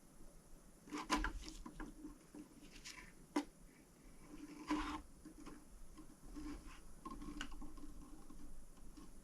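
Faint handling noises from hands and small tools working around an engine block: scattered light clicks and taps, with a sharper click about three and a half seconds in and a brief rustle near five seconds.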